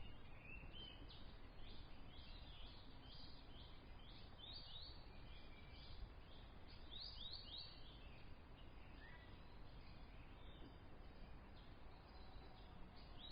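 Faint outdoor nature ambience: many short, high bird chirps over a low, steady background noise.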